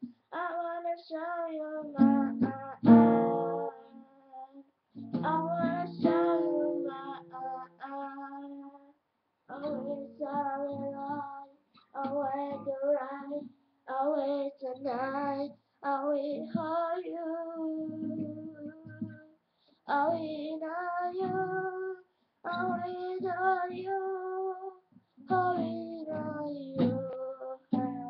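A song: a young female voice singing phrase by phrase, with short breaks between lines, over strummed acoustic guitar.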